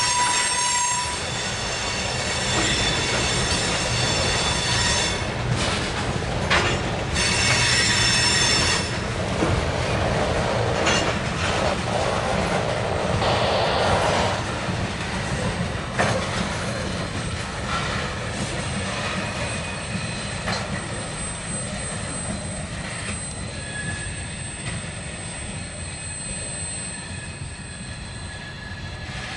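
Hopper cars of a slow freight coal train rolling past with a steady low rumble. Their wheel flanges squeal in several high, shifting tones, and there are a few sharp knocks. The sound grows quieter toward the end as the tail of the train passes.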